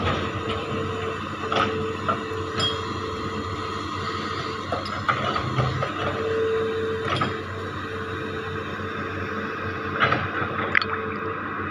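Hitachi Zaxis 210F amphibious excavator working, its diesel engine running steadily under a whine that breaks on and off as the boom and arm move. Several sharp metallic clanks come at intervals.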